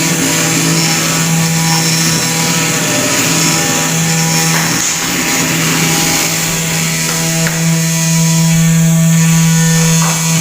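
Mini CNC milling machine running: a steady, loud motor hum with a strong low tone and higher steady tones over it.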